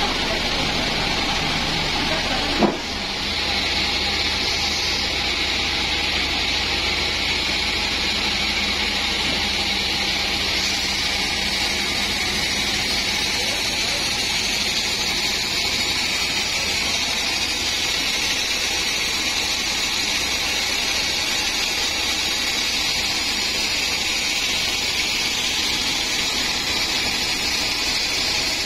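Band sawmill running steadily, not cutting, with a single heavy thump about three seconds in.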